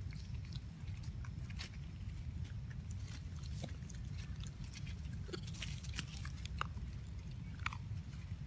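Long-tailed macaque chewing food, small crackly clicks and crunches, over a steady low rumble. Three brief chirps sound in the second half.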